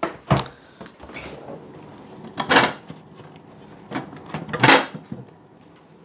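Kitchen handling noises: two sharp knocks right at the start, then two longer scraping bumps about two seconds apart.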